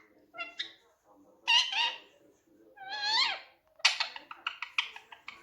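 Indian ringneck parakeet calling and chattering: a few short pitched calls, a longer call that rises and falls about three seconds in, then a quick run of sharp, short squawks near the end.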